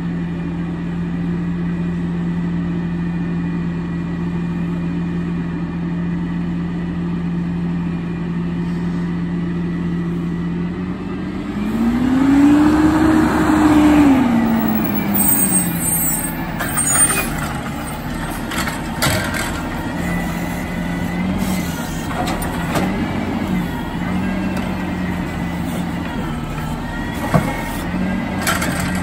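Diesel garbage truck idling, then revving up and back down as it drives forward, with a hiss of air brakes as it stops. It idles with small rises in engine speed, and its automated arm's hydraulics clank, with one sharp knock near the end.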